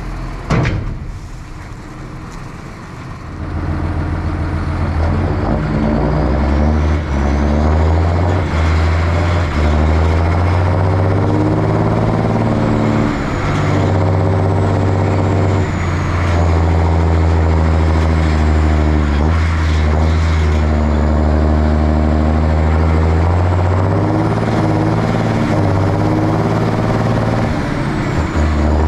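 Tractor engine running under load, its revs stepping up and down every few seconds, after a short sharp knock about half a second in.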